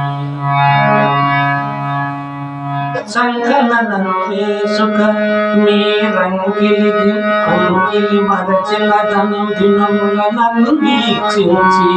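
Harmonium playing a melody of long held reed notes over a steady drone. About three seconds in the notes begin to change more often.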